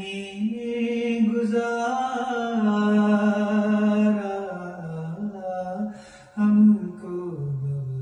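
A man's voice chanting a noha, a Shia lament, unaccompanied, in long drawn-out notes that slide from pitch to pitch.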